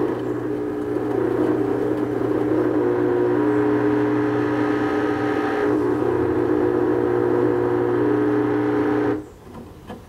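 Midea HealthGuard Smart 13 kg front-load washing machine running in its drain phase: a loud, steady mechanical hum with several held tones that cuts off suddenly about nine seconds in.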